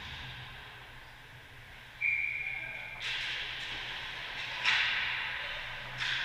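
Ice hockey skates scraping and carving on the rink ice as play starts off a faceoff, with a louder hard scrape about three-quarters of the way through. About two seconds in, a single short whistle blast sounds just before the skating.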